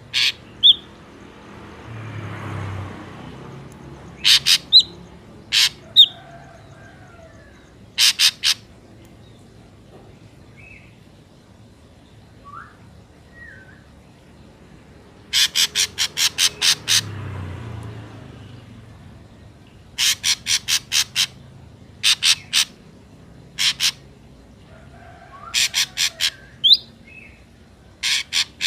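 Ashy drongo calling: rapid runs of sharp, harsh notes in groups of two to about nine, with a few short whistled notes between the runs. A low rushing sound swells twice, about two seconds in and again in the middle.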